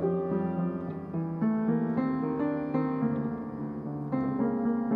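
Piano accompaniment to a ballad, playing a slow passage of sustained chords on its own, with no voice.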